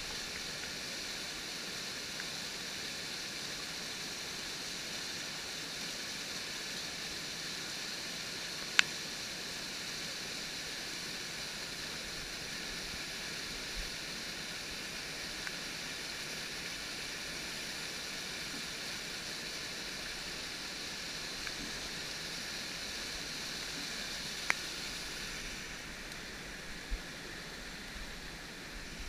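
Mountain torrent rushing over boulders: a steady hiss of whitewater, with two sharp clicks about nine seconds and twenty-four seconds in.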